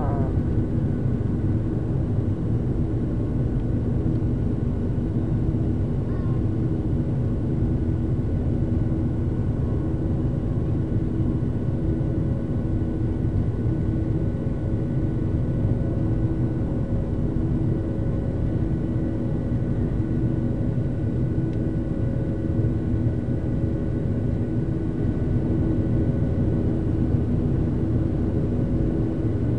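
Cabin noise of a Southwest Airlines Boeing 737 under jet-engine power during takeoff: a steady, loud engine drone with several steady tones over the rumble.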